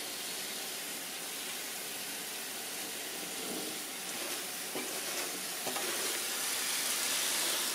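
Kitchen faucet running a steady stream of water into a stainless steel stockpot packed with turnip and mustard greens, growing a little louder toward the end. A few soft rustles come from the leaves as a hand presses them down under the water.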